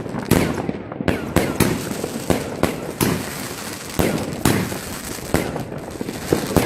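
New Year's Eve fireworks and firecrackers going off all around: a rapid, irregular run of sharp bangs, often two or three a second, some close and loud, others further off, over a continuous background of distant crackling and popping.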